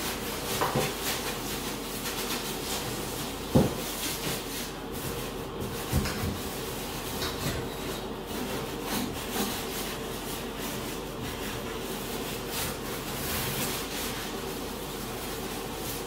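A sponge scrubbing the inside of a bathtub in irregular rubbing strokes over a steady low hum, with a sharp knock about three and a half seconds in and another around six seconds in.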